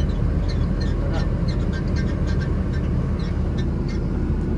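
Container lorry's diesel engine running steadily, heard from inside the cab as a low drone. Short, irregular high-pitched chirps or clicks are scattered over it.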